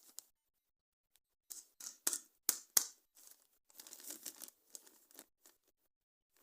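Toy packaging being torn and crinkled open by hand. A few sharp snaps come about one and a half to three seconds in, then a stretch of steady crinkling and crackling.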